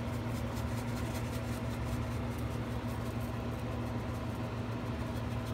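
Steady low hum of a running appliance, unchanging throughout.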